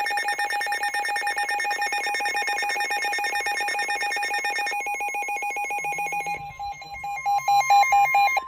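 NOAA weather radios sounding their alert alarm for a severe thunderstorm warning: a rapidly trilling electronic alarm. About halfway through, a steady single tone joins it, and about six seconds in the trill gives way to rapid beeping, about four or five beeps a second, which stops near the end.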